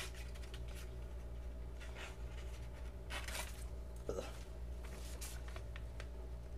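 A few short, soft scrapes and rustles of paper and knife being handled, over a steady low hum.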